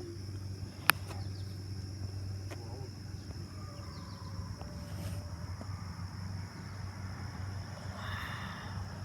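Outdoor background with a steady high-pitched insect drone, typical of cicadas singing, and one sharp click about a second in.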